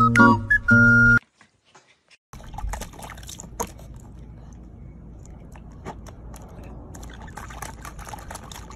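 A short bit of a plucked, whistled tune cuts off. After a second of silence, water splashes and drips lightly with small clicks over a steady hiss as a corgi puppy paws at and dips its face into a small plastic tub of water.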